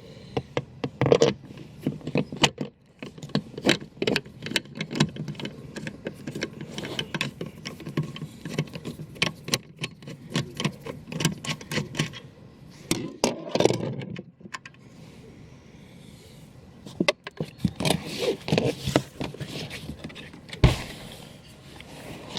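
Clicks, rattles and scrapes of hand tools against the plastic interior trim of a car, with a quieter pause about two-thirds of the way through.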